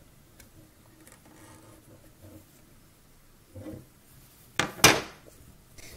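Faint handling of a round plastic knitting loom, then two sharp knocks close together about three-quarters of the way through as the loom is set down on a wooden tabletop.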